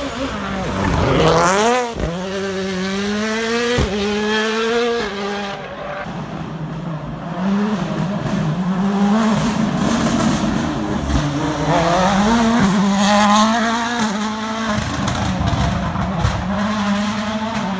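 Turbocharged four-cylinder World Rally Car engines at full throttle, accelerating hard through the gears: the pitch climbs and drops back at each quick upshift, over and over, with sharp cracks at a couple of the shifts.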